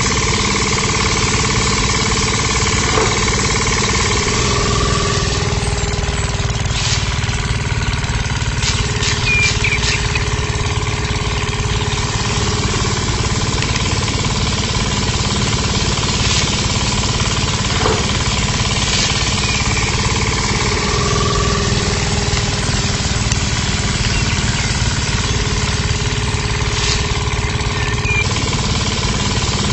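Small electric motor driving a miniature rice thresher's roller, running steadily while rice stalks are held against it. Its tone dips slightly in pitch a couple of times, and a few light ticks come from grain and straw striking the machine.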